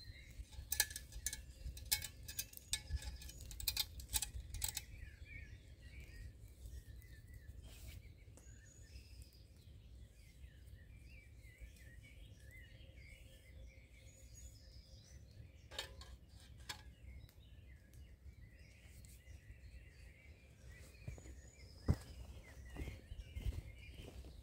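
Small birds chirping and calling throughout, with a run of light clicks and knocks in the first few seconds and a few more later as the metal pot and stove of a Swedish army M40 mess kit are handled and set together.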